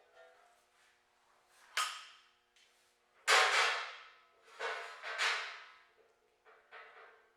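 Steel sawmill bunks and rail parts being handled, giving several sharp metal clanks that each fade out, the loudest a little over three seconds in.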